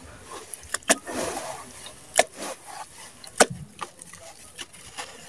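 A wet sand block being squeezed and crumbled by hands in a plastic basin of muddy water: wet sloshing and squelching, with a few sharp cracking knocks, most near one, two and three and a half seconds in.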